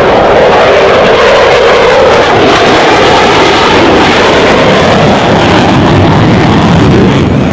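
Loud, continuous jet noise from a Dassault Rafale's two Snecma M88 turbofan engines in a flying display, its pitch shifting through the middle of the run.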